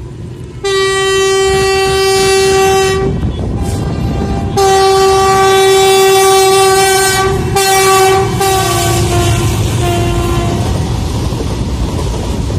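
WDG-4G diesel locomotive sounding its horn in a series of loud blasts as it runs through the station at speed. The first two blasts are long, and the last ones drop lower in pitch as the locomotive goes by. Under the horn runs the steady rumble of the locomotive and the freight wagons' wheels on the rails.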